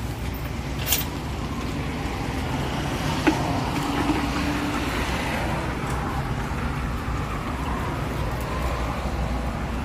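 Steady rumble of road traffic, with two sharp clicks about one second and three seconds in.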